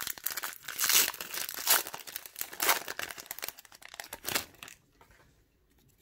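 Foil wrapper of an Upper Deck hockey card pack crinkling and tearing as it is opened by hand, a quick run of crackling rustles that stops about four and a half seconds in.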